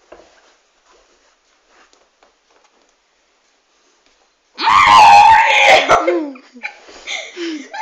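Near quiet, then about four and a half seconds in, loud high screaming cries break out that rise and fall in pitch and go on to the end.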